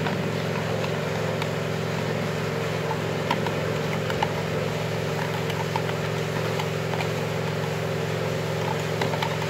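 A steady mechanical hum runs throughout, with light scattered clicks of a metal spoon against a plastic jug as evaporated milk and sugar are stirred.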